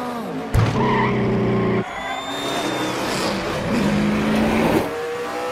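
Race-car engines at speed, with tyre squeal. A loud, steady engine note cuts in suddenly about half a second in and stops abruptly just under two seconds in.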